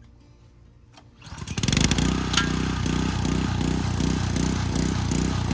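A gas pressure washer's small engine comes up to speed about a second in, then runs loud and steady with a regular pulsing of about three beats a second.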